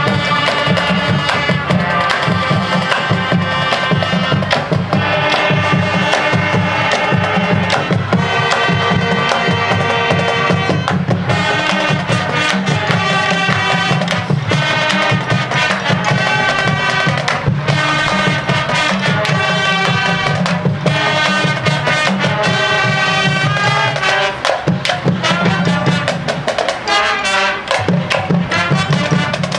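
Marching band playing: brass melody over a drumline of snare, bass drums and auxiliary percussion, with many sharp percussion strikes throughout.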